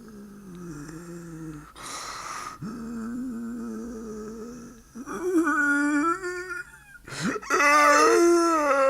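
A man's voice performing zombie moans and groans. Drawn-out wavering groans are broken by a rasping intake of breath about two seconds in and a sharp gasp near the end, after which comes the loudest groan.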